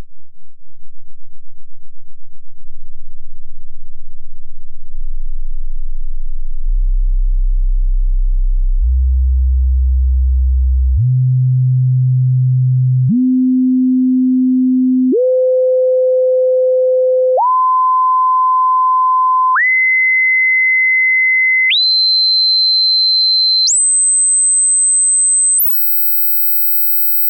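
Hearing-test sine tones for the left ear, stepping up in pitch about an octave at a time, each held about two seconds, from a deep hum to a high whistle near 8 kHz. Near the end a very high tone sounds briefly, then everything cuts off suddenly.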